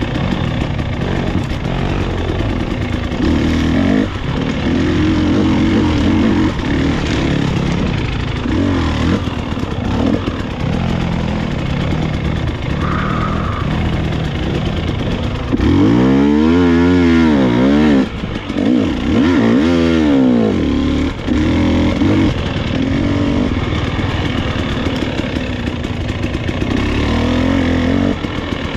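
Dirt bike engine running hard on an enduro trail ride, the revs rising and dropping as the rider works the throttle. About halfway through, two sharp rev-ups in quick succession each climb and fall back; this is the loudest part.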